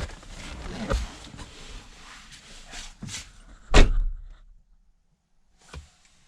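Shuffling and small knocks as someone moves about, then one loud, heavy thump a little under four seconds in, after which it goes quiet apart from a faint knock near the end.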